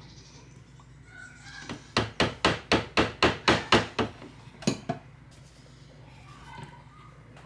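Food processor chopping blade tapped against the rim of the plastic bowl to knock off ricotta filling: a quick run of about eight knocks at about four a second, then two more a moment later.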